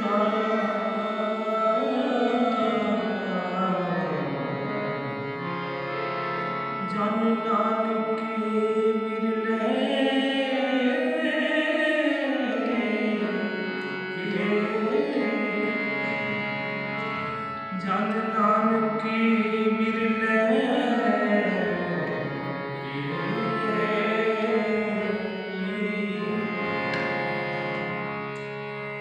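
Sikh kirtan music: harmoniums playing sustained chords and melody under a man's wordless sung line that glides between notes, with tabla accompaniment.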